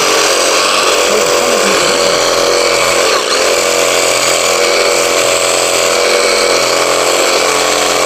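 Cordless reciprocating saw running steadily, its blade cutting into the trunk of a living tree.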